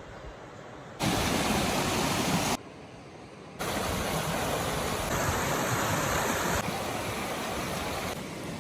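Rushing water in a string of short clips cut together. The level changes abruptly at each cut: it jumps louder about a second in, drops back for about a second shortly after, then comes back loud.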